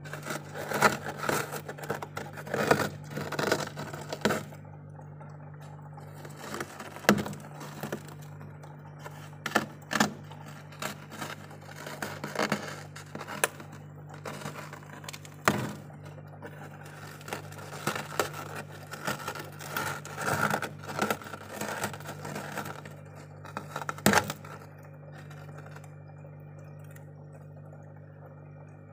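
Fingers scraping and breaking off thick freezer frost: irregular crunches, cracks and scrapes of packed ice, which thin out about 24 seconds in. A steady low hum runs underneath.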